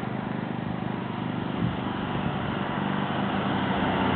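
An engine running steadily with a rapid even beat, getting louder near the end.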